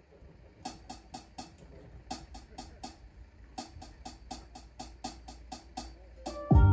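A quiet programmed percussion beat of quick, even clicks and taps, starting about half a second in. Near the end a deep electric bass and a harp come in much louder as the tune starts.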